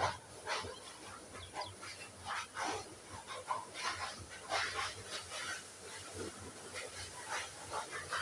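Domestic canary singing: a fast, continuous run of short, bright chirps and trills.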